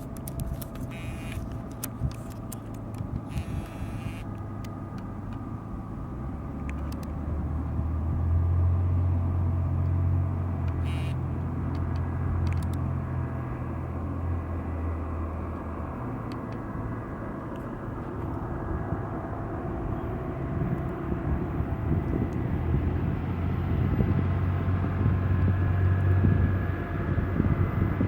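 Diesel engine of a GE ET44AH freight locomotive running under load, a low steady drone that swells loud about eight seconds in, eases, then builds again near the end as the train draws closer.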